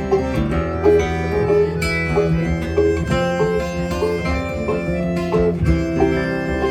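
Acoustic folk trio of accordion, banjo and guitar playing an instrumental break without vocals: held accordion notes under steady plucked banjo and guitar picking.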